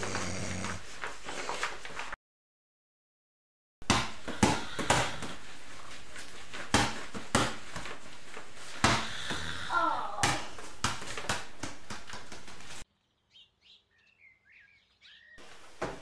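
A ball bouncing repeatedly on a floor, a sharp knock every half second or so, in runs broken by two short stretches of dead silence. Faint high chirps sound in the second silent stretch near the end.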